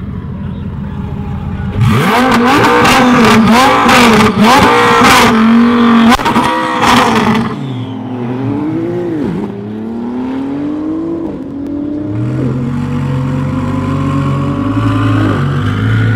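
Tuned car engine revved hard again and again, with sharp exhaust cracks and bangs between the revs. After a few seconds it drops to quieter running: one engine note rises slowly, as a car accelerating away, while another engine idles close by.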